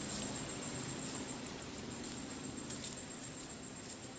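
Insect calling: a high, thin, rapidly pulsing trill that smooths into a steady buzz about halfway through, with a few short faint scratchy sounds.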